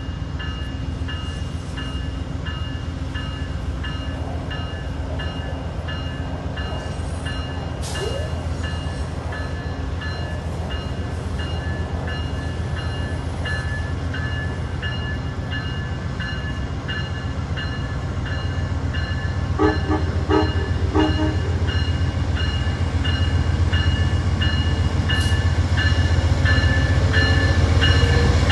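Amtrak GE Genesis P42DC diesel locomotive rumbling as it pulls its train along the platform, its bell ringing steadily about twice a second. It grows louder as it nears. About twenty seconds in, two short horn blasts sound.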